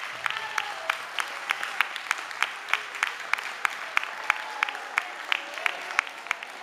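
Onlookers clapping together in a steady rhythm, about three claps a second, over a wash of looser applause.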